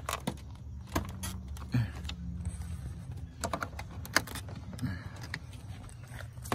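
Infiniti Q50's plastic front bumper cover being tugged loose by hand: scattered, irregular clicks and knocks from the plastic fascia and its retaining clips, over a low steady hum.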